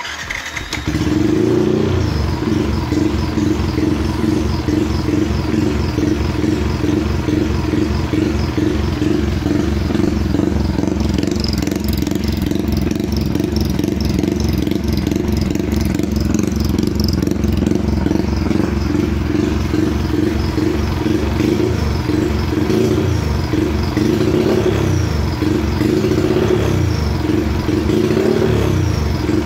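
Yamaha underbone motorcycle engine, on a freshly set ECU fuel map, running at a fast idle and being revved, swelling several times near the end. As the revs rise toward 4000 rpm it seems to run rich.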